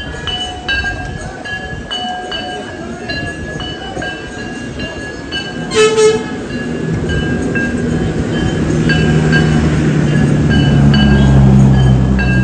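Temple bells struck again and again for the aarti, each strike ringing on a few metallic tones, about one every 0.7 seconds, with one sharper, louder clang about halfway. In the second half a low, steady, horn-like drone comes in under the bells and swells louder.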